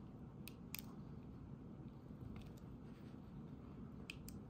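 A few faint small clicks from a Honda key fob's plastic case and coin-cell battery being worked with the fingers, as the old battery is pushed against its retaining tabs, over low room hum.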